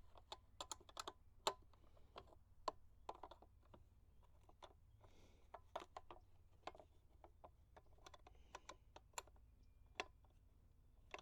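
Irregular light clicks and taps: metal tools and small parts being handled while working on the motorcycle's license plate bolts.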